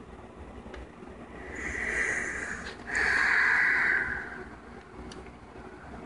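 A person breathing close to the microphone, two breaths in a row. The first swells up and fades about three seconds in; the second starts suddenly, is louder, and fades about a second later.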